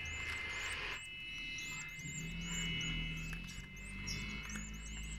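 Ten-day-old goldfinch hybrid nestlings begging: a rapid string of thin, high cheeps, several a second, over a low steady hum.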